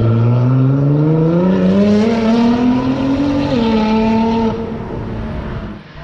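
Sports car engine accelerating hard, its pitch rising steadily, then dropping with an upshift about three and a half seconds in and pulling again before fading away.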